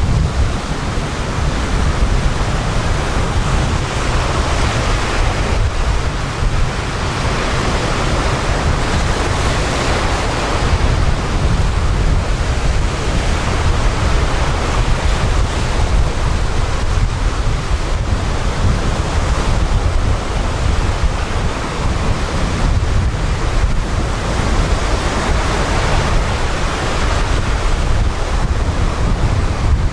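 Sea surf: waves breaking and foam washing up a sandy shore, the hiss swelling and fading every few seconds. Wind buffets the microphone with a low rumble.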